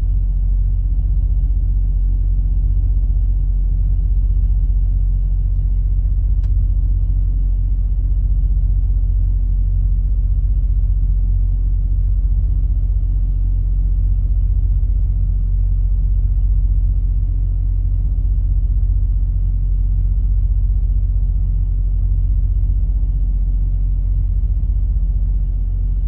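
Semi truck's engine idling, heard from inside the cab: a steady low rumble that does not change, with one faint click about six seconds in.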